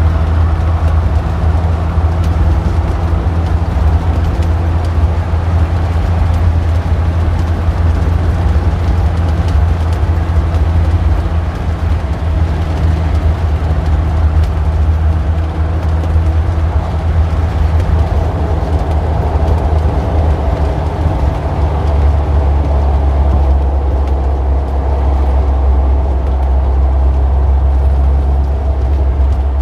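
Street traffic dominated by a steady, loud low engine rumble, with the drone shifting slightly a little over twenty seconds in.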